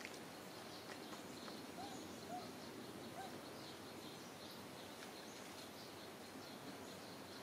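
Faint outdoor ambience: a steady hiss with small birds chirping over and over. Three short, soft arched calls come about two to three seconds in.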